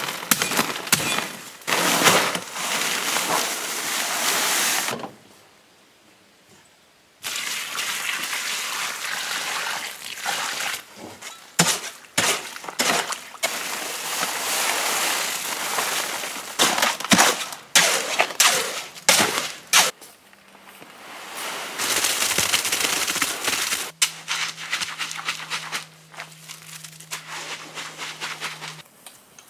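Dry concrete mix pouring out of paper sacks into a wheelbarrow tub, and a hoe scraping and knocking through the mix against the tub. Near the end, wet concrete being pushed and spread inside a wooden form.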